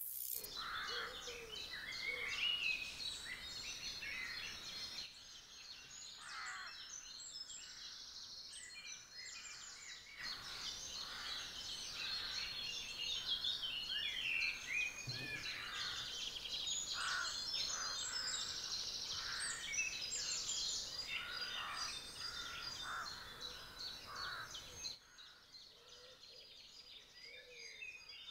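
Many songbirds singing at once, a dense chorus of overlapping chirps, trills and whistles, with the mix dropping quieter near the end.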